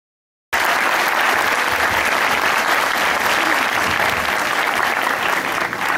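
Audience applauding steadily, cutting in abruptly about half a second in and thinning a little near the end.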